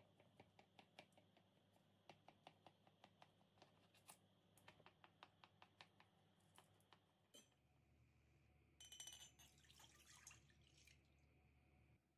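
Very faint, crisp clicks of a knife cutting through a baked brioche with a crust of sliced almonds, a few a second for about the first seven seconds. A brief, louder noise follows about nine seconds in.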